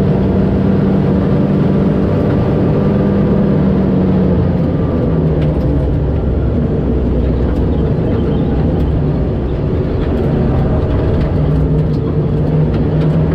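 Rally car engine running under load, heard from inside the cabin while driving on a gravel road. The engine note steps slightly lower about four to five seconds in and climbs again near the end.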